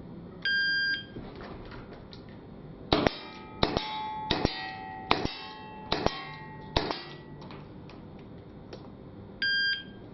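A shot timer's start buzzer, then six revolver shots over about four seconds, each with a short metallic ring, then the end buzzer nine seconds after the start, marking the 9-second par time for six shots.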